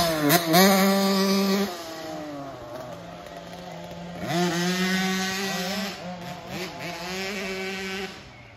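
50cc kids' two-stroke dirt bike engine revving high, with a quick drop and recovery in pitch at the start as the bike goes over a jump. The sound falls back after a second or two, then rises again to high revs from about four seconds in, with the revs wavering, before falling away near the end.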